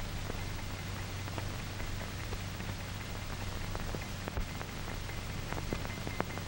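Background noise of an old optical film soundtrack: a steady hiss and low hum with scattered faint clicks and pops.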